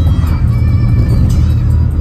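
Background music with a strong bass line.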